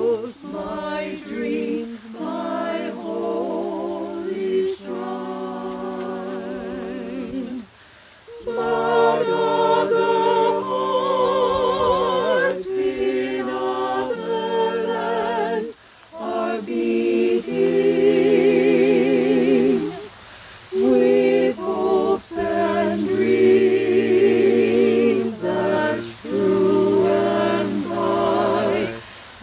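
Small mixed-voice a cappella ensemble singing in harmony, with no accompaniment. The long held phrases break off briefly about 8 and 16 seconds in.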